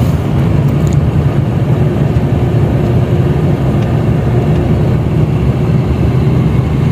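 Steady drone of a car driving, heard from inside the cabin: low engine hum and road noise.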